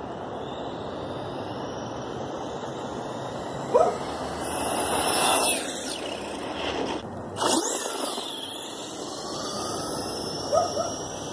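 Traxxas Stampede 2WD RC monster truck with a Castle 5900kv brushless motor making a speed pass, its high motor whine rising and falling between about four and eight seconds in. A dog yips briefly twice, about four seconds in and near the end.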